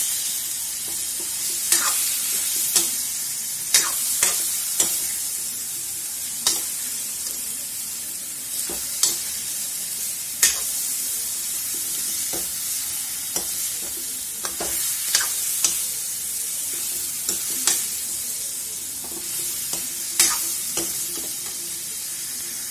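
Chicken pieces sizzling in hot oil in an iron kadhai while a steel ladle stirs them, knocking and scraping against the pan every second or two. The chicken is being browned in the oil.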